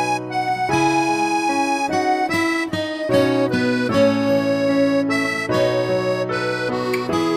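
Instrumental background music: held chords under a melody of sustained notes that change every half second or so.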